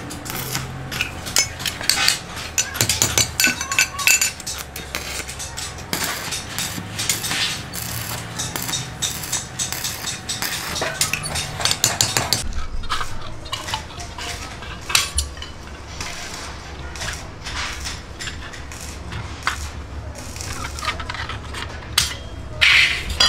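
Stick welding crackles, then hammer taps and metal clinks as a steel ring is joined to a rod handle. After a change partway through come scattered clicks and clinks of hand snips cutting a stainless steel sheet.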